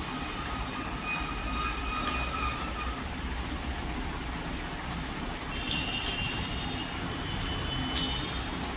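Steady low rumble and hiss of background noise, with faint high steady tones in the first few seconds and again in the second half, and two light clicks about six and eight seconds in.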